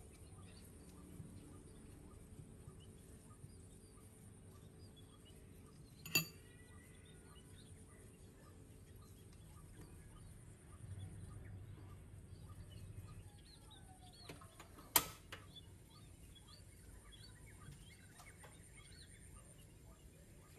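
Birds chirping continuously in the background. Two sharp, ringing clinks of a utensil against a dish come about six seconds in and again near fifteen seconds.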